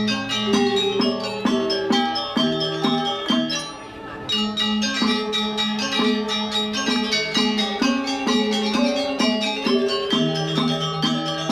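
Balinese gamelan ensemble playing: bronze metallophones struck with mallets in fast ringing note patterns, with kendang drums. The ensemble drops away briefly about four seconds in, then comes back in full.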